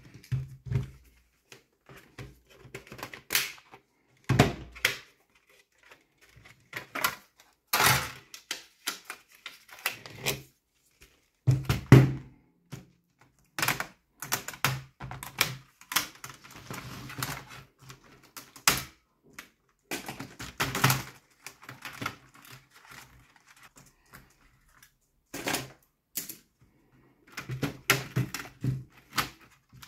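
Dell Latitude E7440 laptop being taken apart by hand, its keyboard pried out and lifted off: irregular plastic clicks, snaps and knocks.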